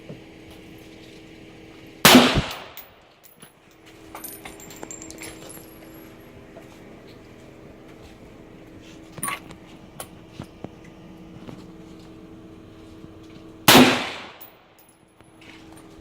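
Two single shots from an AR-15 rifle, one about two seconds in and one near the end, each a sharp crack with a short echoing tail. Faint clicks fall in between.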